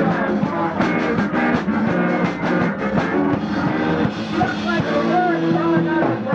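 A rock band playing, with drums and guitar, in an early-1980s punk-era rock style.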